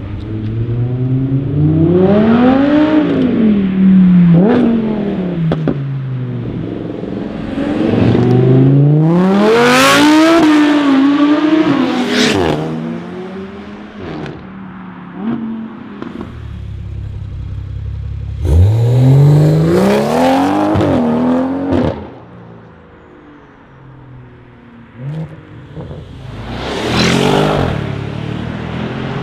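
Several sports cars accelerating hard away one after another, each engine's pitch climbing through a gear and dropping at the shift, with a few sharp cracks in between. Near the end an Audi RS6 Avant's twin-turbo V8 revs up as it pulls away.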